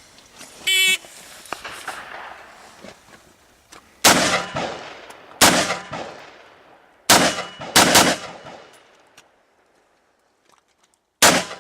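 A shot timer beeps once, then five rifle shots ring out at uneven spacing, each trailing off in echo, with a longer pause before the last.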